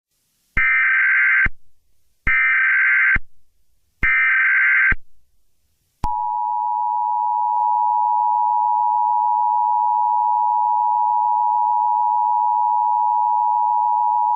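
Emergency Alert System SAME header: three short bursts of warbling data tones, each about a second long, then the steady two-tone EAS attention signal held for about eight seconds. It announces a Required Monthly Test.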